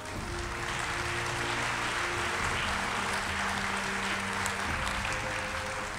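Audience applauding: steady clapping that builds just after the start and eases slightly near the end.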